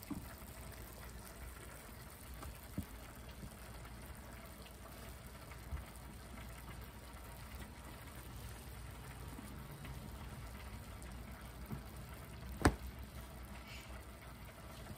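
Faint steady hiss in a kitchen, with a few light knocks from things being handled on the counter and one sharp click or knock about two-thirds of the way through.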